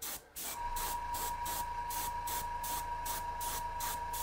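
Airbrush spraying white primer, a hiss that pulses about three times a second. About half a second in, a steady low hum with a faint steady tone starts underneath it.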